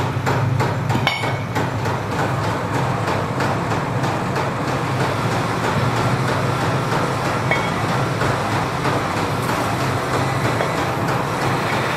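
Steady low hum of workshop machinery, with a few light metal clinks in the first second or so as steel axle shafts are handled.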